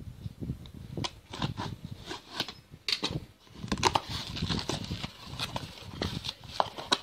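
Cardboard box and plastic packaging being opened and handled by hand: an irregular run of scrapes, taps and crinkles as the tape is slit, the flaps are pulled open and a bubble-wrapped item is drawn out.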